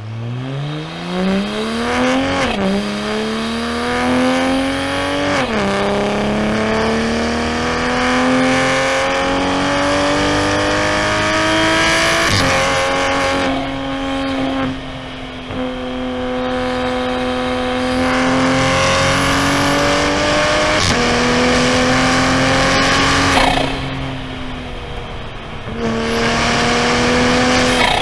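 A90 Supra's B58 3.0-litre turbocharged inline-six under acceleration: the engine pitch climbs and drops sharply at upshifts about two and a half and five and a half seconds in, then it pulls on steadily, easing off and back on the throttle a few times.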